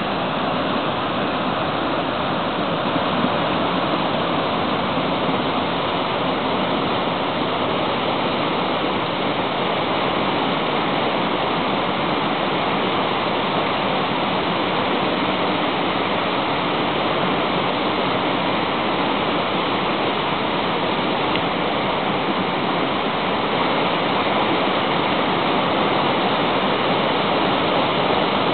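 A fast river rushing over and between boulders in shallow rapids: a steady, loud roar of white water.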